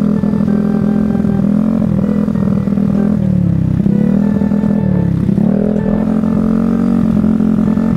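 Yamaha Mio Sporty scooter's big-bore (63 mm) single-cylinder engine running hard at speed. The engine pitch holds steady, drops briefly about three seconds in and again about five seconds in, then climbs back each time.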